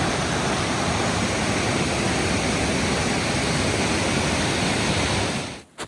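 Waterfall running high with spring snowmelt: a steady, heavy rush of water that cuts off suddenly near the end.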